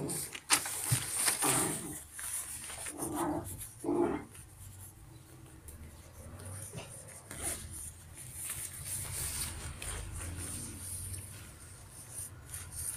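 Rustling and crinkling of the thin nylon shell of a quilted down jacket as a hand presses and handles it. A few short, louder low sounds come in the first four seconds.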